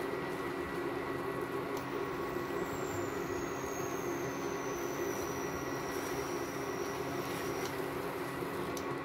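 Steady mechanical hum with a few constant tones and a faint high whine that slowly falls in pitch.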